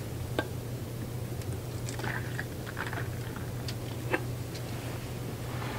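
Liquid being poured from a small metal measuring cup into a plastic bottle: faint scattered clicks and crackles over a steady low hum.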